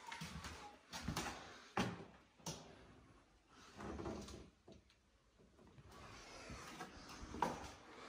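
Scattered knocks and clunks: a few sharp ones and some duller thumps, with quiet handling noise in between.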